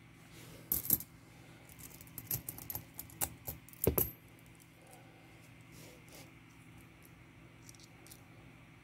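Copper Lincoln cents clicking against one another as they are picked up and sorted by hand: a quick run of light clicks in the first half, two louder ones near the start and about four seconds in, then a few faint ones near the end.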